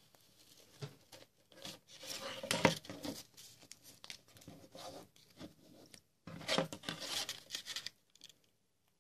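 Clear adhesive contact paper crinkling and peeling off its backing as it is pressed and smoothed over a sheet of sticker labels, sped up to double speed. It comes in uneven rustling bursts, loudest about two and a half seconds in and again from about six to eight seconds in.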